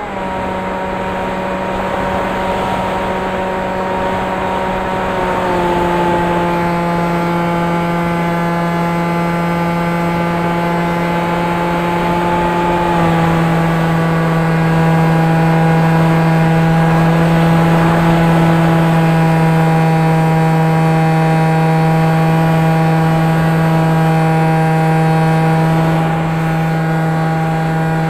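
Electric motors and propellers of an FPV aircraft running steadily in flight, a loud, even buzzing hum that drops slightly in pitch twice, about five and thirteen seconds in, as the throttle eases.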